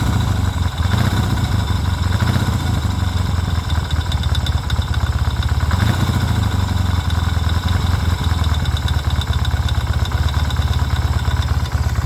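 Yamaha XS2 650 air-cooled parallel-twin engine idling steadily with a rhythmic mechanical knock. The owner has not found the cause: it persists after tightening the cam chain and setting the valves to spec, and appears only with the bike upright.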